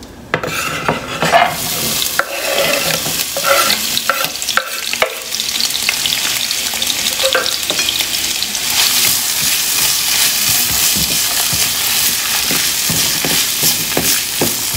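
Chopped onion, tomato and garlic sizzling as they fry in hot oil and ghee in a nonstick frying pan, the sizzle growing louder about eight seconds in. A few knocks and scrapes in the first seconds as the vegetables are tipped in off a wooden cutting board, and a spatula stirring near the end.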